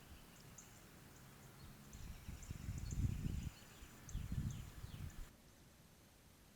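Faint outdoor ambience: small birds chirping and ticking, with two bursts of low rumble on the microphone. About five seconds in it cuts to a quieter, even background.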